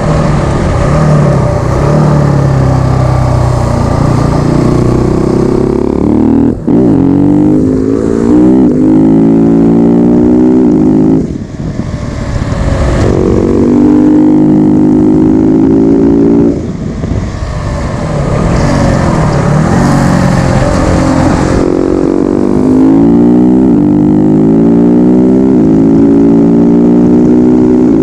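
KTM 690 SMC R's single-cylinder engine accelerating hard through the gears. Its pitch climbs and then drops sharply at each upshift, and it twice lifts off the throttle briefly before pulling again.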